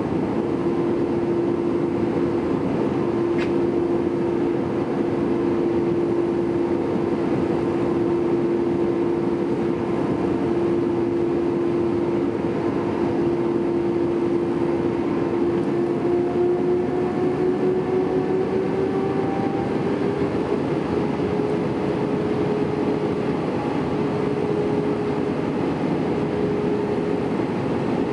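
Airbus A320-200 cabin noise in flight: a steady rush of airflow with an engine hum, which glides slightly higher in pitch a little past halfway through.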